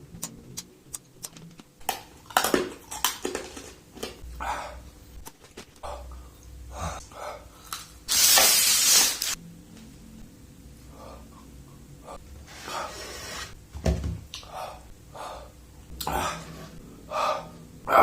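A man eating strong cough candies makes mouth and breath noises: small clicks at first, then scattered smacks and sharp breaths. About eight seconds in comes one loud rush of breath lasting just over a second.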